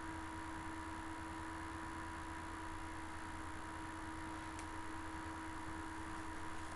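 Steady background hiss with a constant electrical hum, with one faint click a little past halfway.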